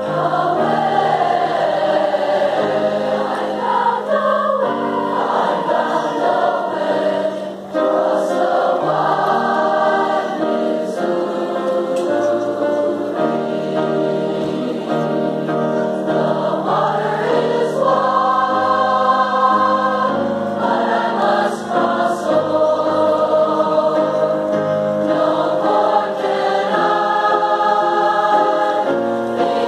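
Large mixed youth choir of girls' and boys' voices singing in long, held chords.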